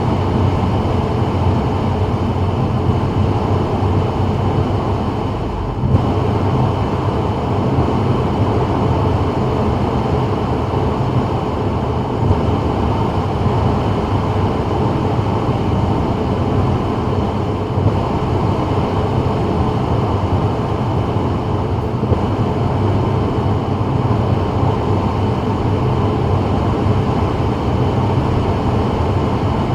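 Steady road and tyre noise with a low engine rumble inside the cabin of a 2024 Subaru WRX moving at freeway speed, with a few small knocks.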